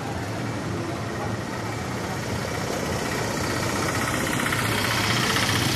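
Street traffic ambience with a motor vehicle's engine running close by, its steady low rumble getting louder from about three seconds in.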